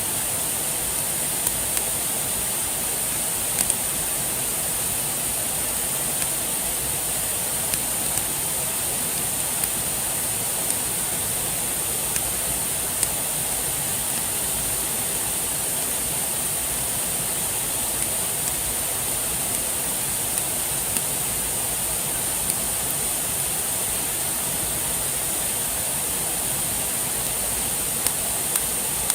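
Steady rush of running water, like a stream or small waterfall, with sparse small snaps and pops from a campfire.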